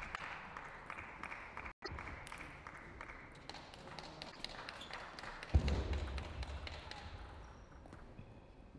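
Table tennis ball clicking off bats and table in a quick irregular series, over a hall's steady background. A heavy low thud comes about five and a half seconds in.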